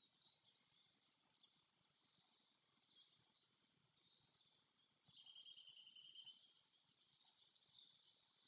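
Faint forest birdsong: scattered high chirps and calls, with a short rapid trill about five seconds in.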